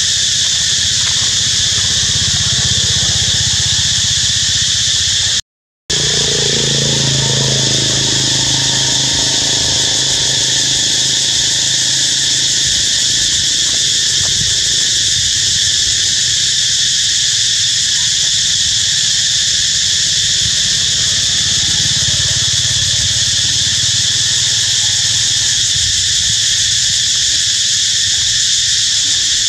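Loud, steady chorus of insects droning high and even, broken by a short gap of silence about five seconds in. Just after the gap, a low engine hum of a passing vehicle falls in pitch and fades over several seconds.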